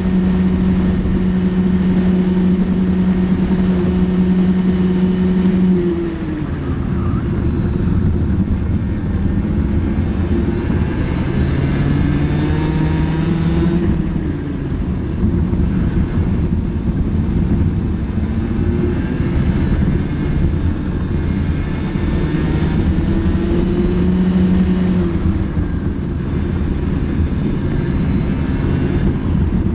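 Racing kart engine heard from onboard, held at high revs, then dropping about six seconds in as the driver lifts off for a corner. The revs climb and fall again twice more as it accelerates down the straights and eases off, over a steady rush of wind and tyre noise.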